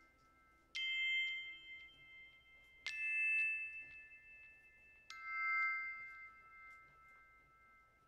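Background music: three bell-like struck notes, about two seconds apart, each ringing out and slowly fading.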